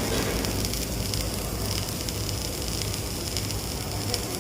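Stick (SMAW) welding arc burning steadily, a continuous crackling sizzle, over a steady low hum.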